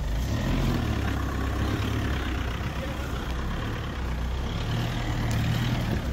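Off-road 4x4's engine running at low revs, a steady low drone that swells louder just after the start and again near the end.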